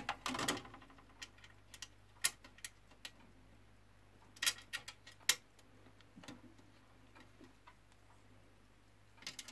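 Scattered light clicks and taps of a screwdriver and screw being worked into the metal top plate of a reel-to-reel tape deck, with a few sharper knocks about two, four and a half, and five seconds in.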